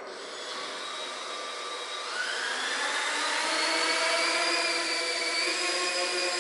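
Small quadcopter drone's electric motors and propellers spinning up: a whine that rises in pitch about two seconds in and then holds steady.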